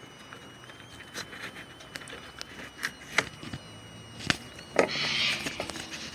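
Car door handle parts being worked loose by hand: a scatter of sharp clicks and knocks, with a short scraping rustle about five seconds in.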